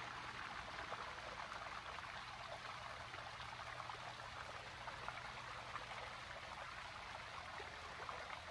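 Faint, steady rush of running stream water, with a fine trickling crackle.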